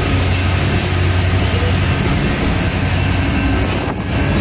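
A BNSF diesel locomotive passes close by with its engine's steady low drone, which fades after about three seconds as the coal hopper cars behind it rumble past on the rails.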